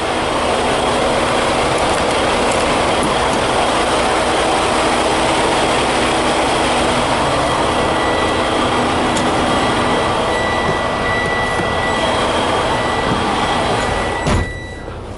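Steady, loud noise of idling truck engines, with a low hum and a few held tones. It drops away suddenly with a knock shortly before the end.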